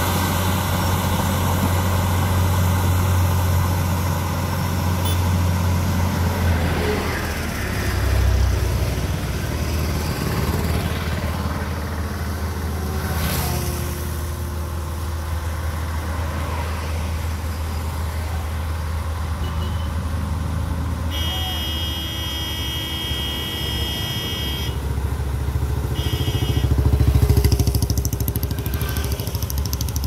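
Crawler bulldozer's diesel engine running steadily under load as it pushes soil, with road traffic passing. A vehicle horn sounds for about four seconds past the middle, then again briefly, and the engine grows louder near the end.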